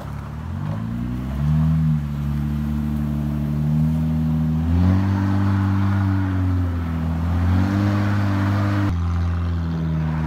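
Jeep Wrangler JK's V6 engine pulling under load as the Jeep crawls up a steep dirt and rock trail, its note rising and falling with the throttle. The pitch climbs about a second in and again about halfway, dips a little later, and near the end a second Wrangler's engine takes over as it climbs.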